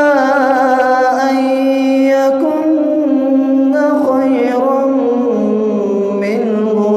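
A man reciting the Qur'an in slow melodic chant, drawing out long held notes with ornamented turns between pitches, stepping down in pitch a little past the middle.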